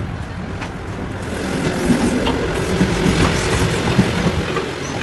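Moving passenger train heard from the passage between carriages: wheels and rails rumbling and rattling, getting louder about a second and a half in, with a few sharp knocks.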